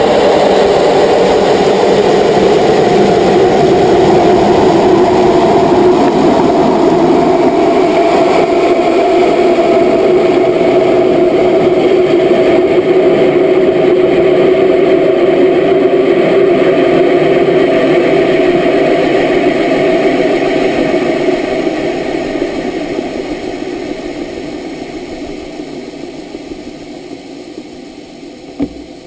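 Onboard sound of the GoFast amateur solid-fuel rocket climbing: a loud, steady rushing roar of motor and airflow with a droning tone. The roar fades steadily over the last third, and there is a single click near the end.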